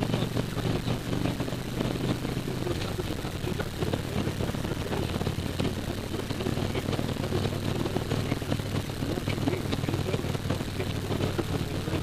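Motorcycle engine running steadily at cruising speed, heard from a helmet camera, with wind buffeting the microphone.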